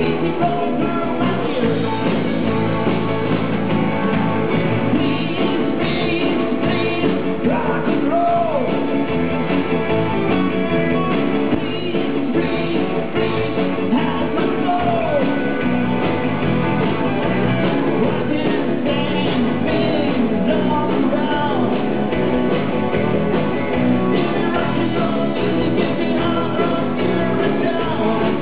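Live rock music: electric guitars playing with a male lead singer.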